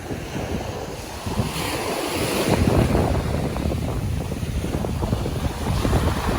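Sea waves washing onto the beach, with wind buffeting the microphone; a wave's rush swells about a second and a half in.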